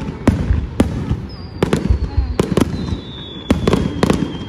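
Fireworks display: a rapid, irregular series of sharp bangs from bursting shells, about ten in all, with a thin whistle slowly falling in pitch through the second half.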